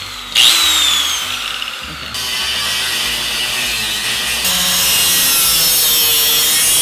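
Skil angle grinder cutting through the metal wheelchair rails bolted to a bus floor: a loud, steady grinding with a high whine that drops in pitch as the disc bites in. It comes as several short takes spliced together, each starting abruptly, about half a second, two seconds and four and a half seconds in.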